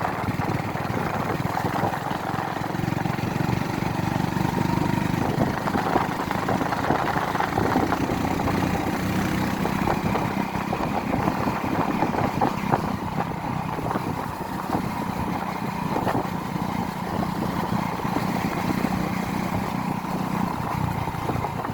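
A vehicle engine running steadily under a continuous hum of travel noise.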